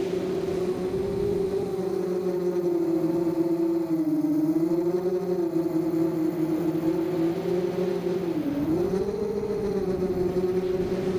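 ZMR250 mini quadcopter's brushless motors and propellers whining in flight, the pitch wavering with the throttle and dipping briefly about four seconds in and again about eight and a half seconds in.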